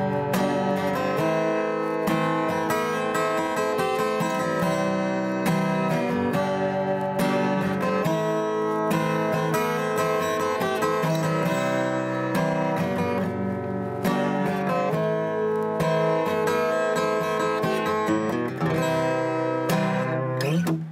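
Acoustic guitar being strummed, chords ringing on at an even level, then stopping near the end.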